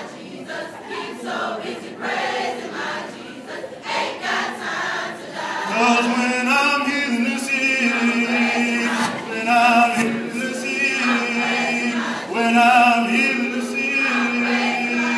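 High-school chorus singing a gospel spiritual. About six seconds in it grows louder, with a steady low note held underneath and high voices with vibrato above.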